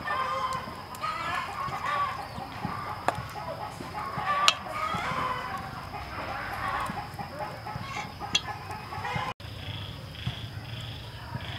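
Chickens clucking in short repeated calls, with a few sharp clinks of a metal fork against a stainless-steel mixing bowl.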